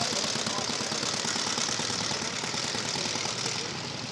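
Single-cylinder engine of a 1912 Rudge 500cc veteran motorcycle running as it rides past, a rapid, even stream of exhaust beats.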